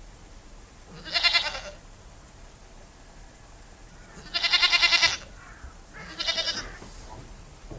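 Goat bleating three times: two loud wavering bleats, the second longer at nearly a second, then a quieter, shorter one.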